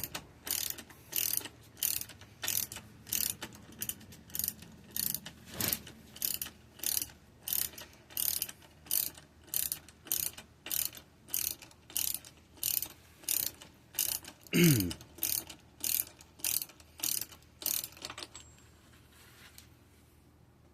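Ratchet wrench with a 24 mm socket clicking in short bursts, about one every 0.6 s, on each back-stroke as it spins a long-threaded nut off. The clicking stops near the end. A brief falling sound comes about three quarters of the way through.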